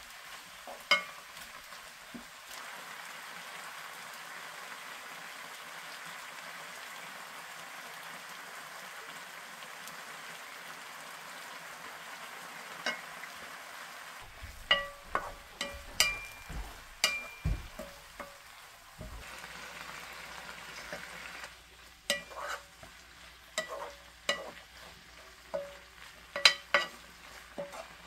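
Vegetables and meat sizzling steadily as they stir-fry in a pan on a gas burner. From about halfway on, a wooden spatula turning the food knocks and clacks sharply against the pan many times.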